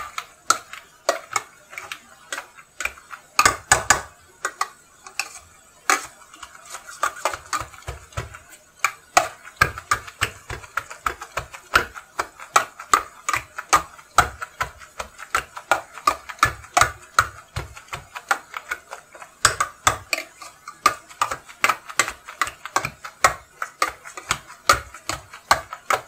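Hand potato masher working boiled potatoes, carrots and onion in a stainless steel pan: quick, repeated knocks of the masher striking down through the mash onto the pan, a few strokes a second.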